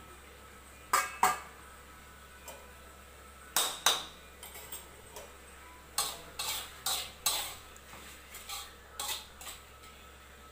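Metal cookware clanking: a utensil and a pan lid knocking against a wok in sharp separate clinks, two about a second in, two more near four seconds, then a quicker run of lighter clinks.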